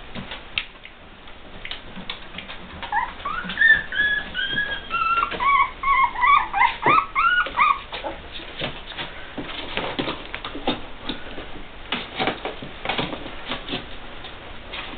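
Young puppies whimpering: a string of short, high, rising-and-falling squeaks starting about three seconds in and lasting some five seconds. They are followed by light clicks and scratches as the puppies crawl about in a plastic pool lined with a towel.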